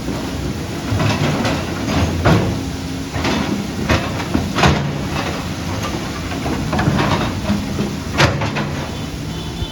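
Diesel engine of a heavy tracked earthmoving machine running steadily, with a series of sharp metallic clanks and knocks, the loudest about two, four, four and a half and eight seconds in.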